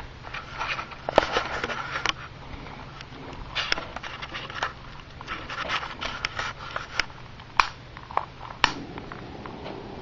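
Handling noises as a small butane torch is picked up and readied: rustling and clicks, then near the end a few sharp clicks of its igniter. The torch lights and burns with a steady low rush.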